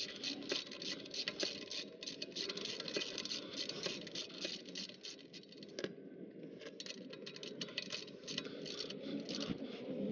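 Socket ratchet clicking in quick runs as it tightens an oil-pan drain plug back in, with a short break about six seconds in.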